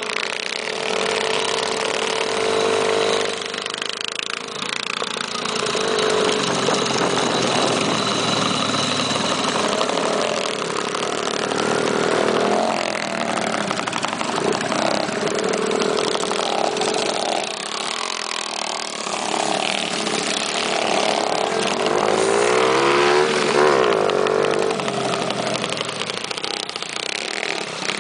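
Minibikes' small engines running as the group rides, the pitch rising and falling as the riders open and close the throttle, with the strongest revving about halfway through and again near the end.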